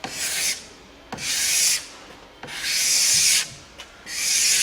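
Plastic ski-wax scraper drawn along a ski base in four one-direction strokes, tip to tail, each a hissing scrape that begins with a small click. The wax is cold, and excess wax is being shaved off the base.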